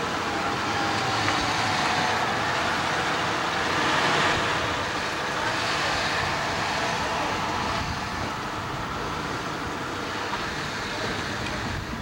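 Ford pickup truck driving slowly past close by, its engine and tyres loudest about four seconds in.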